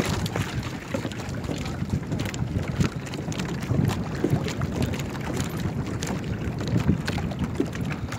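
Wind blowing on the microphone over open lake water: a steady low rush with scattered small clicks.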